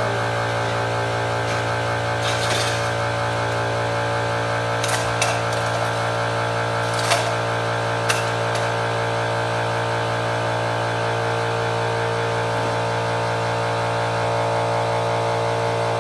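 Air compressor running with a steady hum that holds one pitch throughout, with a few light clicks and knocks over it.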